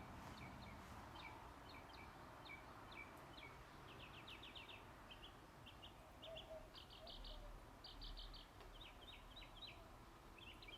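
Faint birds chirping: short high notes repeated in quick clusters throughout, over a quiet background hiss.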